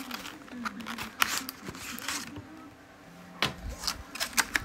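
A phone case's retail box being torn open and handled by hand: irregular rips, crackles and clicks of cardboard and packaging, with a quieter pause midway.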